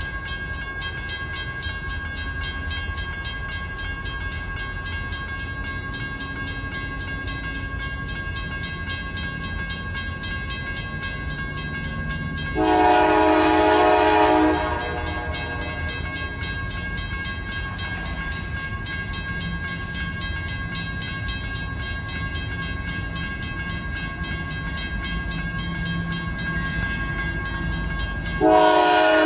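Approaching diesel freight train: a steady low rumble under a crossing bell ringing continuously, with one horn blast of about two seconds from the lead GE AC44CW locomotive about halfway through and a second blast starting near the end.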